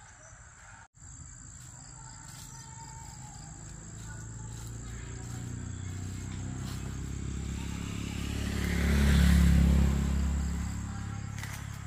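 A motor vehicle passing on a nearby road: its rumble grows louder over several seconds, peaks about three-quarters of the way through, then fades. A steady high insect whine runs underneath.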